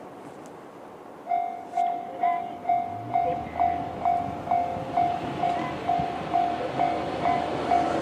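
Japanese railway level-crossing warning bell, the electronic JR standard sound, starting about a second in and striking a single ringing tone evenly, about two and a half times a second. It signals an approaching train as the crossing closes.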